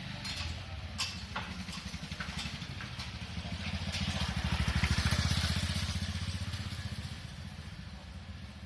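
A small engine running at low speed with an even pulse, growing louder to a peak about halfway through and then easing off, as a vehicle passing would. A few sharp clicks sound over it at first.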